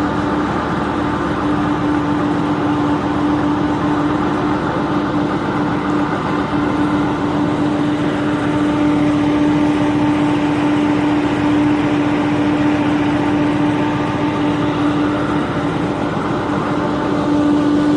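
A boat's engine running steadily on board: a constant droning hum with one strong unchanging tone over a rushing noise.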